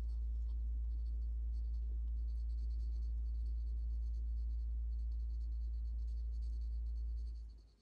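Graphite pencil scratching on sketchbook paper in light shading strokes, over a steady low hum that fades away near the end.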